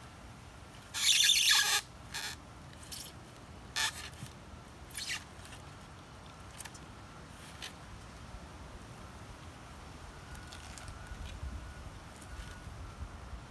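Green iguana's skin being worked loose and peeled from the flesh by hand. A loud, short ripping noise comes about a second in, then scattered small clicks and scrapes as the skin is pulled around the shoulder.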